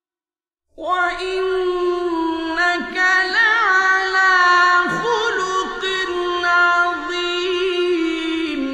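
A man's high, melodic Quran recitation with tajweed: after a brief silence, one long sung phrase starts about a second in, with drawn-out held notes and wavering ornaments. A faint low hum from the old radio recording lies beneath the voice.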